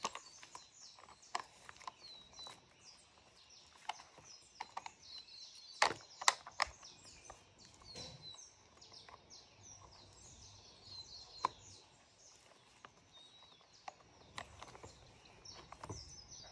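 Scattered clicks and knocks of plastic and metal as a Stihl MSA 120 C battery chainsaw is handled and its bar and chain are fitted, the loudest a quick cluster about six seconds in. Birds chirp over the top of it.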